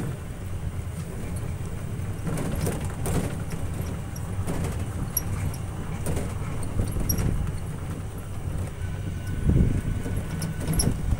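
Open-sided passenger shuttle car in motion, heard from a seat on board: a steady low rumble with scattered rattles and knocks from the body, louder near the end.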